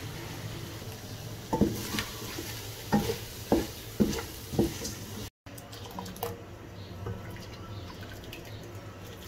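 Wooden spoon stirring mutton masala in a cooking pot, knocking against the pot about six times in quick succession. After a cut, softer clicks as a wooden spoon stirs a thick, soft daal mixture, over a steady low hum.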